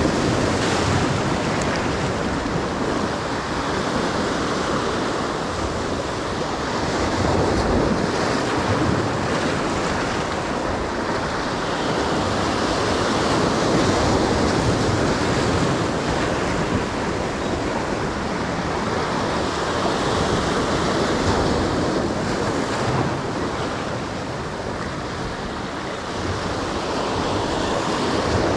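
Surf breaking and washing over jetty rocks, a steady rushing noise that swells and eases every six or seven seconds as the waves come in. Wind buffets the microphone.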